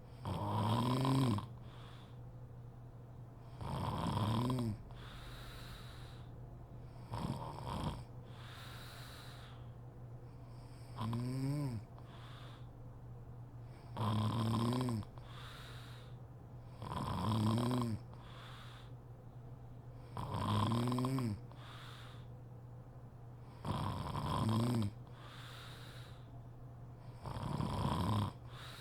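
A sleeping woman snoring: nine loud, pitched snores about three seconds apart, each lasting about a second, with quieter breathing between them.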